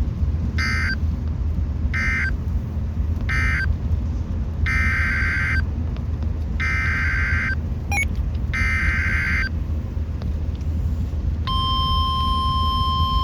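Emergency Alert System data bursts on NOAA Weather Radio: three short buzzy bursts closing the previous warning (the end-of-message code), then three longer bursts, the header for the next warning. About 11 seconds in, the steady 1050 Hz weather radio alarm tone begins. A steady low hum runs underneath.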